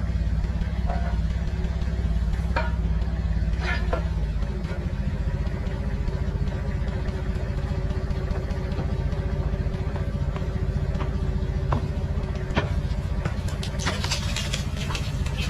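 Small excavator's engine running steadily while it digs, its note shifting about four seconds in. Scattered sharp knocks sound over it, and a quick run of cracks and clatter comes near the end.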